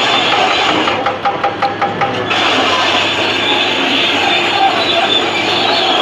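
Caterpillar D9R crawler bulldozer on the move, its steel track chain squealing and clanking over the steady run of its diesel engine. About a second in, a quick run of sharp, evenly spaced clanks lasts about a second.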